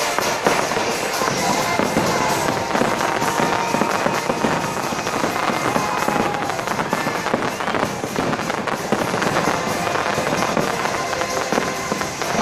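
Fireworks going off in quick succession, a dense run of bangs and crackles, over the show's music soundtrack.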